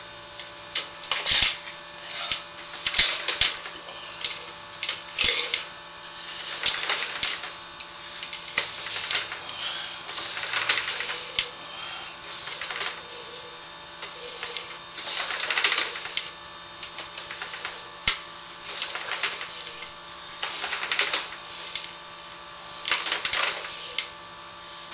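Sewer inspection camera's push cable being fed into a drain line: irregular scraping and rattling bursts with a few sharp clicks, over a steady low hum.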